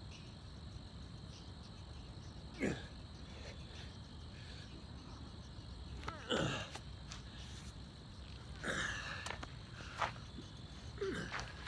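A man's forceful exhales and grunts while doing push-ups, about five of them, each falling in pitch, the loudest about six seconds in. Under them, a steady high trill of crickets.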